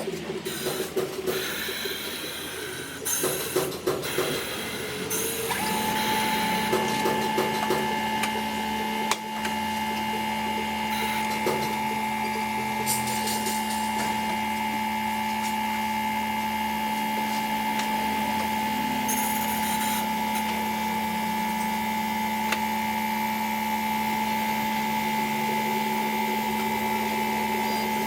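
Workshop tools clatter and click for a few seconds, then a machine motor starts a steady whine about five seconds in and holds it at an even pitch almost to the end.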